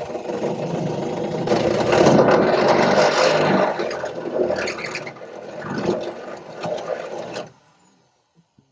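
Corded electric drill with a large bit boring a hole, a continuous grinding scrape that is loudest in the first half and stops suddenly near the end.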